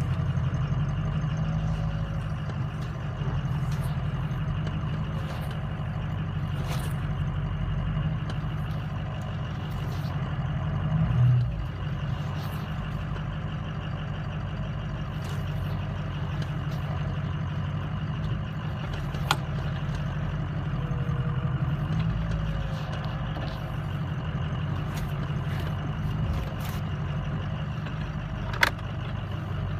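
2004 Ford 6.0 Powerstroke V8 turbo-diesel running steadily, with a bad lifter. There is a short swell in the engine sound about a third of the way in, and two sharp clicks, one in the middle and one near the end.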